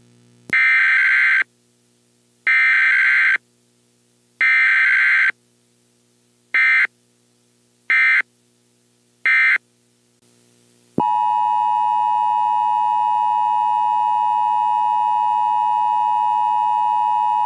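Emergency Alert System tones. First come screeching digital data bursts: three long ones about two seconds apart, then three short ones. About 11 seconds in, the steady two-tone attention signal starts and holds for about eight seconds, announcing an emergency alert.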